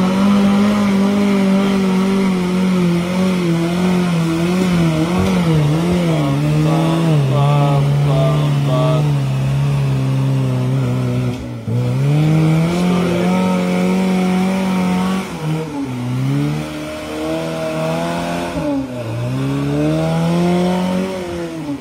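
Engine of a lifted 4x4 pickup revving under load as it climbs a steep mud trail. The pitch sinks slowly over several seconds, then picks up again in a few surges, rising and falling.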